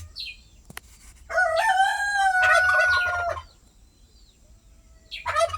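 A rooster crowing once, a single long crow of about two seconds that holds its pitch and drops off at the end. A short high bird chirp comes just before it, and another fowl call starts right at the end.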